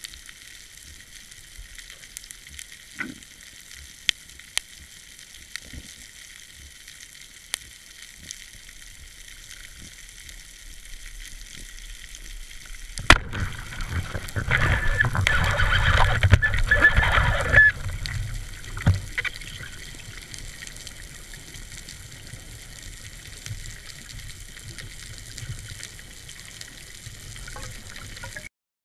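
Underwater sound: a quiet hiss with scattered faint clicks, then about thirteen seconds in a single sharp crack as a wooden band-powered speargun fires, followed by a few seconds of loud rushing, bubbling water noise that dies back to a steady hiss.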